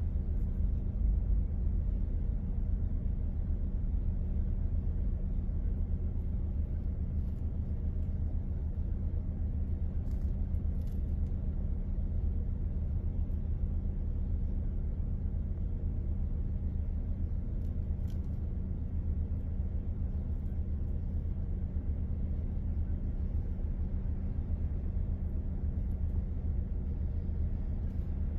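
Car engine idling, heard inside the cabin as a steady low hum and rumble.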